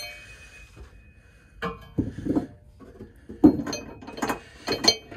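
Steel seat-mount bracket clinking and knocking against the van's steel frame rail as it is held up and shifted into place by hand: a string of irregular metallic knocks, the loudest about three and a half seconds in.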